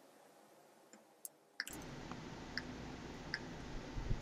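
Near silence for the first second and a half, then faint room hiss with a few sparse, separate clicks from a computer mouse and keyboard.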